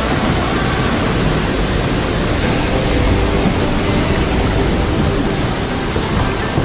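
Loud, steady rushing noise of wind buffeting the microphone together with ocean water around a sea kayak, with a fluttering low rumble and no distinct events.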